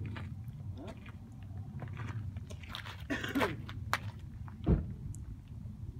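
Rubbing and clicking of a recording device handled against a car window, over a steady low rumble inside the vehicle's cabin. A short muffled voice comes about three seconds in, and a single low thump comes near the end.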